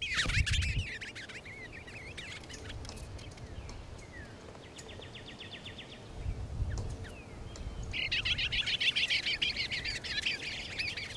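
Songbirds singing: a brief warbling phrase at the start, then rapid trills. A short trill comes around five seconds in, and a longer, louder one from about eight seconds on.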